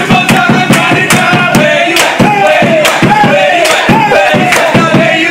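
A group of restaurant staff and diners sings a birthday song loudly together, to steady clapping of about three claps a second.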